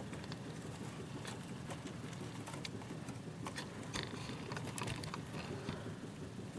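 Scattered small clicks and light taps from handling things on a workbench, over a steady low hum.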